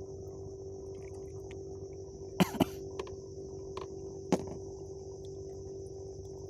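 A few sharp knocks and clicks of fishing gear being handled in an inflatable boat: two close together about two and a half seconds in, then another near four and a half seconds. Underneath runs a steady hum with a high, even hiss.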